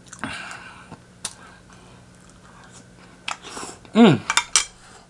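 Close-up eating sounds of fried chicken being chewed: scattered wet smacks and sharp mouth clicks, with a short voice sound falling in pitch about four seconds in.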